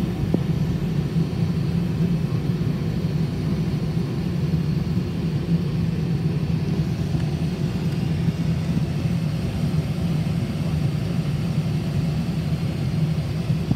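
Steady rumble inside the cockpit of a Cessna Citation XLS business jet on final approach: airflow over the fuselage and its twin turbofan engines, holding an even level.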